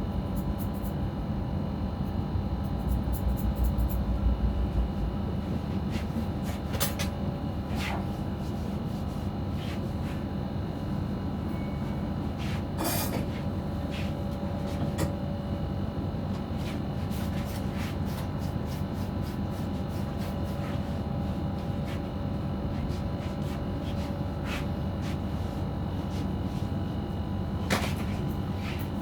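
Head-massage handling sounds: irregular light clicks and taps, a few sharper ones, over a steady hum with a low rumble.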